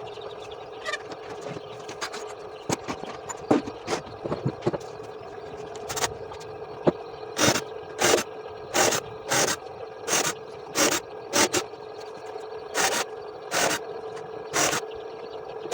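Rhythmic back-and-forth scraping strokes, about one and a half a second, beginning about six seconds in, over a steady hum.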